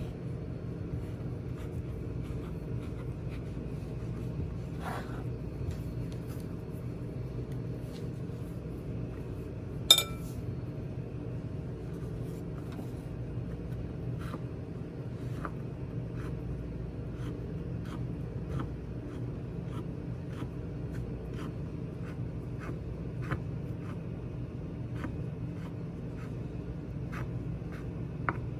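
Rolling pin working dough on a floured board: light repeated knocks and rubbing, about one a second, over a steady low hum, with one sharp knock about ten seconds in.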